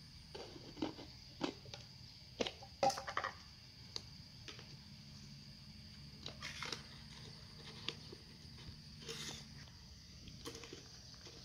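Scattered light clicks and taps from handling a clear plastic lid and container. The power drill is off.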